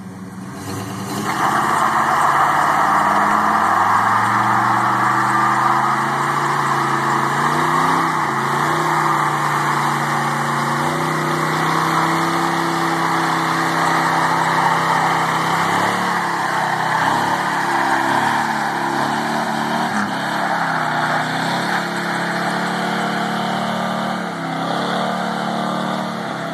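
1972 Chevrolet pickup's 454 big-block V8 held at high revs in a burnout, the tyres spinning on tar with a dense rushing hiss. The engine note climbs over the first few seconds, then holds and wavers, and slowly fades as the truck pulls away down the road.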